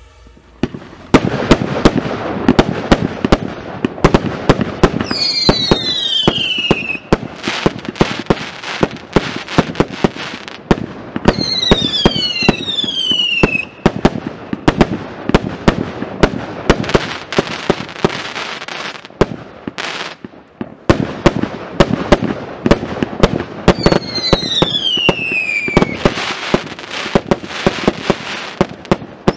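The Strike Performance 'Propaganda' 88-shot consumer firework cake firing a rapid barrage of shots and bursts with crackle, starting about a second in. Several times, falling whistles sound through the shots, and there is a short lull around two-thirds of the way through.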